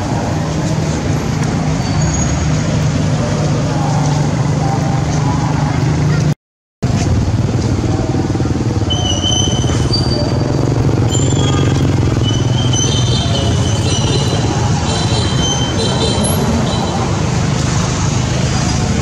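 Steady engine-like rumble of motor or road traffic noise, which cuts out for a moment about six seconds in. From about nine seconds in, short high-pitched chirps come through over it.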